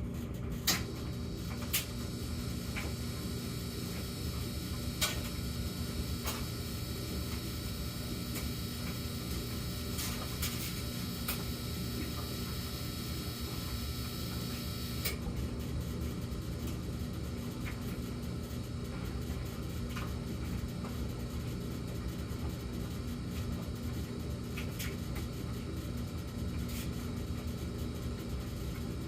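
Samsung gas dryer running with a high-pitched hum that cuts off suddenly about fifteen seconds in, leaving a steady low hum, part of a repeating hum pattern whose cause the owner doesn't know. Occasional light knocks sound throughout, loudest near the start.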